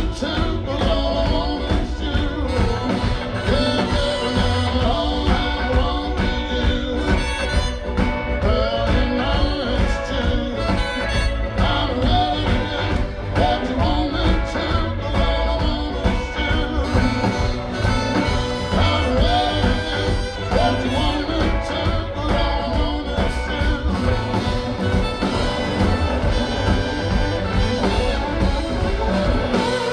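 Live blues-rock band playing: electric guitars, bass, drum kit and saxophones, with a steady drum beat throughout.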